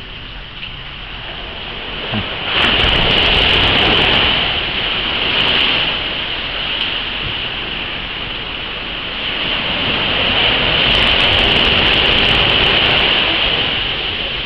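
Heavy rain falling, a steady rushing hiss that swells louder twice, about two and a half seconds in and again near ten seconds.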